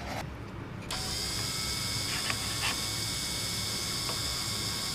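TDR 82B drill grinder's motor switched on about a second in, then running steadily with a high whine over a broad hiss. A few light clicks follow.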